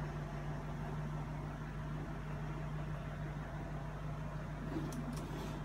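Self-balancing hoverboard's hub motors humming steadily while it holds a standing rider upright, with a few faint clicks near the end.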